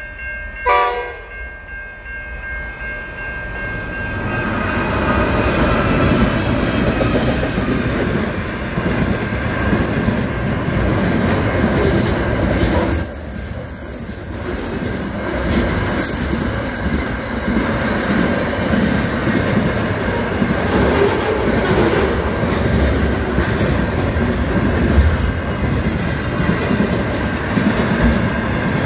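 A Pacific National freight train hauled by NR-class diesel-electric locomotives: a horn blast cuts off about a second in, then the rumble swells over the next few seconds as the locomotives pass. After that comes the steady rumble and clickety-clack of container wagons rolling by.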